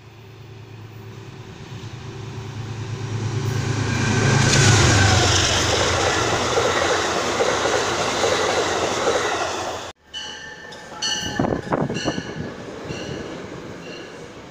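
An Amtrak passenger train passes on a far track. Its wheels on the rail build to a loud rush over a low steady drone, peaking about four to five seconds in. After a cut, Metro-North commuter coaches roll past close by with a few short squeals and knocks from the wheels.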